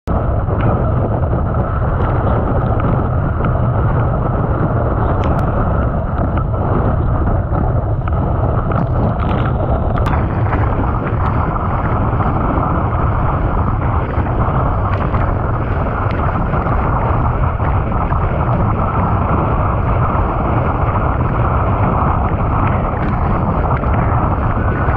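Wind buffeting the microphone of a board-mounted GoPro over the rush and spray of water under a windsurf board planing at speed: a loud, steady noise with a few light ticks scattered through it.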